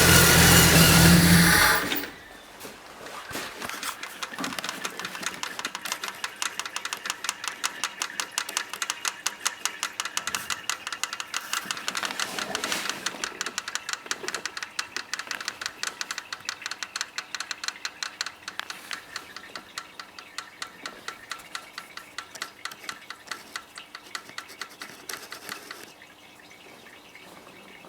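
Jeep Wrangler 4.0 straight-six engine shut off after running, followed by a long, rapid, even ticking from the top end that fades and stops after about twenty-odd seconds. The owner feels this ticking in the valve springs. It comes every time the engine is turned over.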